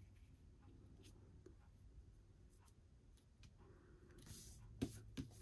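Near silence, with faint rustles and light taps of card stock being positioned and pressed down by hand, and a slightly louder paper rustle about four seconds in.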